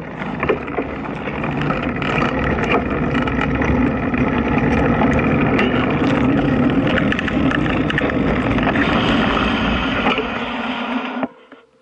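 Vehicle engine running as it pulls away slowly, building over the first few seconds and then holding steady, with a noisy rush over it; it cuts off suddenly near the end.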